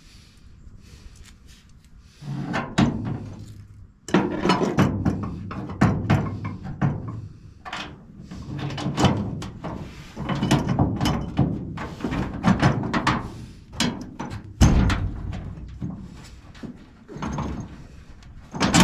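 Irregular metal clunks, knocks and clatter of tools and hardware working on a steel spare tire mount in a pickup bed, busy from about four seconds in.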